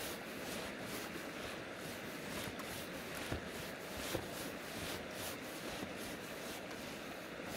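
Steady rushing of a river flowing past a gravel bank, with two faint clicks about three and four seconds in.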